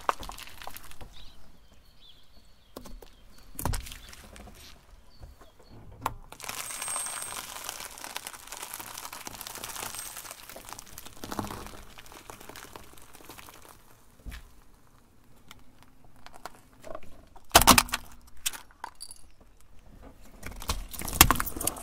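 A car tyre slowly rolling over and crushing a series of small objects: crunching, crackling and rustling of biscuits and snack wrappers, broken by several sharp cracks and clinks. The loudest crack comes about three-quarters of the way through, and another near the end.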